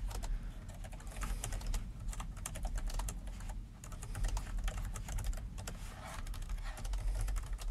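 Typing on a computer keyboard: rapid, irregular key clicks, with a brief pause about halfway through.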